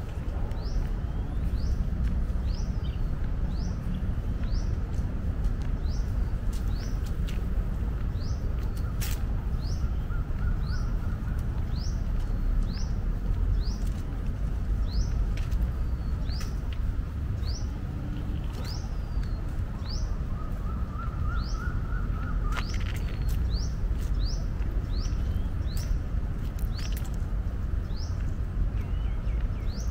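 Birds calling in the trees: a short rising chirp repeated over and over, about once a second, with a lower trill from another bird twice. A steady low rumble runs underneath.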